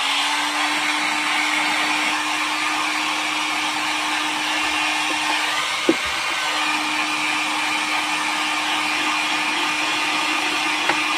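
Silverline DIY-series heat gun running steadily, its fan giving a loud, even rush of blown air over a steady motor hum. A single short knock about six seconds in.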